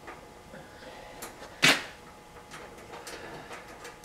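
Hands working with metal hardware on a kerosene heater's steel cart frame while fitting bolts and nuts: faint clicks and light ticking, with one sharp metal clunk about one and a half seconds in.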